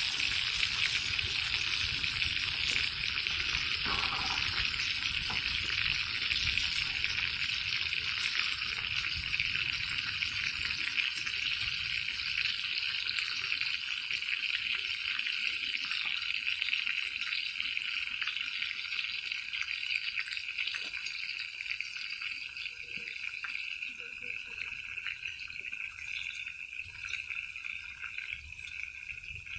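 Food sizzling and crackling in a cast-iron pan over a campfire stove, the sizzle slowly dying down.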